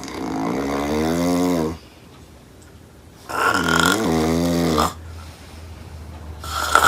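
A woman snoring loudly: long wavering snores about three seconds apart, two full ones and a third starting near the end.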